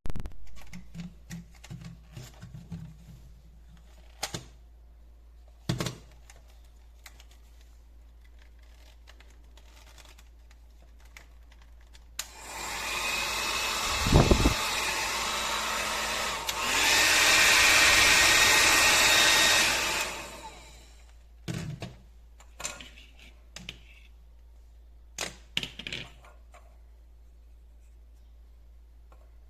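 Clicks and handling knocks, then a compact travel hair dryer switched on about twelve seconds in, running with a steady airy rush on a lower setting, with a thump partway through. It steps up to a louder setting a few seconds later, runs briefly, and is switched off, followed by more clicks and handling knocks.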